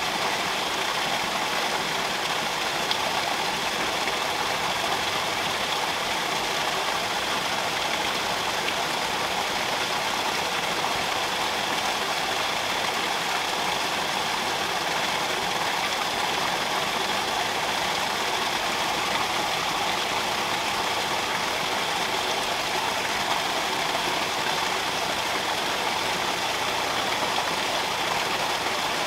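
Water flowing steadily, a constant rushing noise with no breaks.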